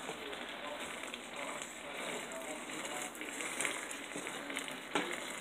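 Hamburger meat frying in a pan on a stovetop: a steady crackling sizzle. A short knock comes near the end.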